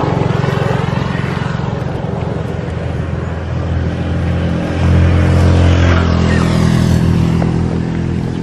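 A motor vehicle engine running steadily, growing louder about five seconds in.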